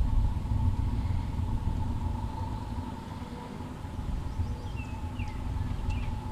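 Boat motor running steadily: a low rumble with a steady whine over it. A few short bird chirps come in over it about two-thirds of the way through.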